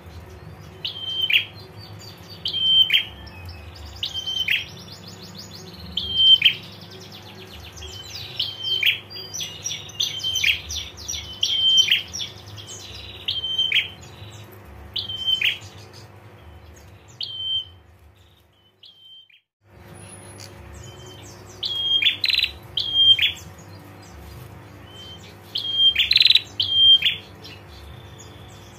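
Prenjak (prinia) calls: a short sharp high note ending in a quick downward flick, repeated about every second and a half. A rapid dry trill, the 'ngetir' rattle, runs over them from about four to ten seconds in. The sound cuts out briefly a little before twenty seconds, the calls then resume more densely, and a steady low hum lies underneath.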